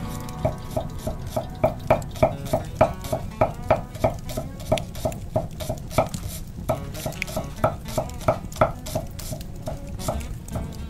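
Chef's knife chopping a red onion on an end-grain wooden cutting board: a quick, even run of sharp knocks, about three to four a second. The chopping stops briefly about two-thirds of the way through, then starts again.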